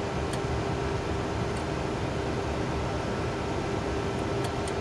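Steady flight-deck noise of a Boeing 737-200 in its departure climb: air rushing past the cockpit and the drone of its Pratt & Whitney JT8D engines, with a steady hum underneath and a few faint ticks.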